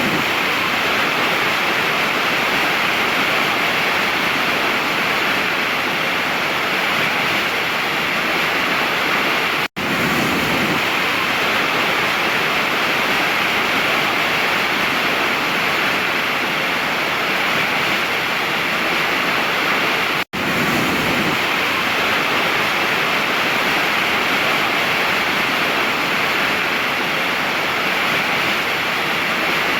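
Waterfall rushing in a steady, even roar of falling water that cuts out for an instant twice, about ten and twenty seconds in.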